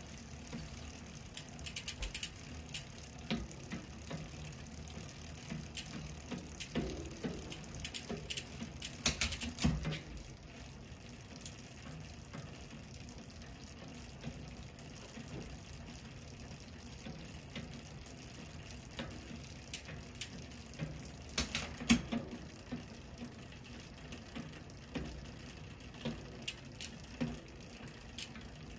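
Freshly waxed bicycle chain running quietly over the rear cassette and derailleur pulleys as the pedal is turned by hand, a steady soft whir with scattered ticks and clicks from the drivetrain and rear hub. The wax has been broken up enough that the chain flexes smoothly and runs quietly.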